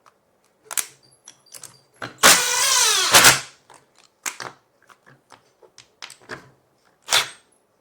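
Cordless drill running for about a second to drive a screw, its motor whine falling in pitch as it slows under load. Sharp clicks and knocks of parts being handled come before and after it.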